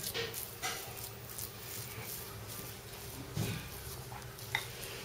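Spoon scraping and smearing ground-meat filling across a sheet of rolled dough in soft, irregular strokes, with a sharper click near the end.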